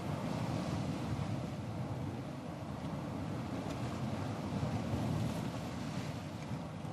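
Ocean surf as a steady low rush of water, with no single wave breaking clearly.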